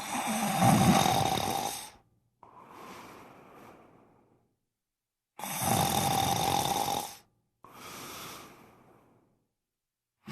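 Snoring in a regular cycle. A loud snore of about two seconds is followed by a softer, fading breath, with dead silence before the next snore. It happens twice, and a third snore begins at the very end.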